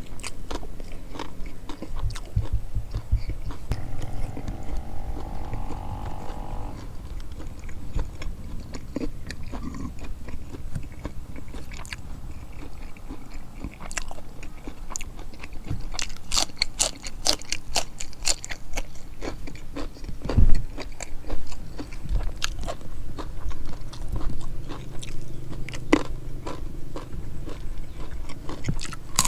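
A person eating close to the microphone: steady chewing and biting with crunchy, crackling mouth sounds and smacks, with one louder crunch about twenty seconds in.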